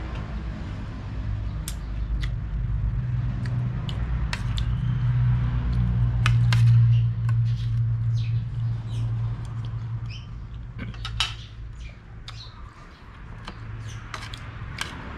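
Metal spoon and fork tapping and scraping against a ceramic soup bowl in scattered light clinks. Underneath, a low drone swells to its loudest about seven seconds in and fades out by about eleven seconds.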